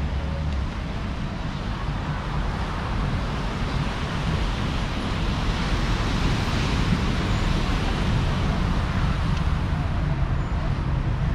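Street traffic noise: a steady rumble of road vehicles, growing a little louder about halfway through.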